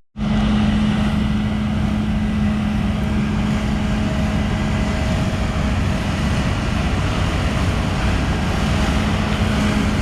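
Vehicle engine running steadily at constant speed, with a steady low drone.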